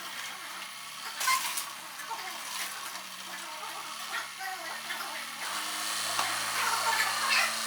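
Demolition excavator at work: crackling, crunching and scraping of breaking debris with a sharper crack a little over a second in, over the hum of the diesel engine, which grows louder about five seconds in.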